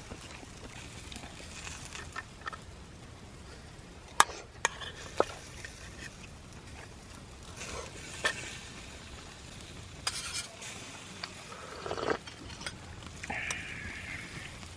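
Food sizzling steadily on a grill over a wood fire, with a few sharp clicks and taps scattered through.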